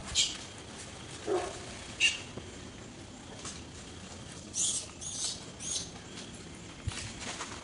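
Long-tailed macaques calling: short, separate high-pitched squeaks, a brief lower call about a second and a half in, and a quick run of three high squeaks about halfway through.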